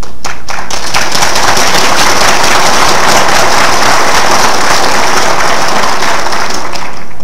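Audience applauding: a few separate claps, swelling within about a second into dense clapping from many hands, which dies away near the end.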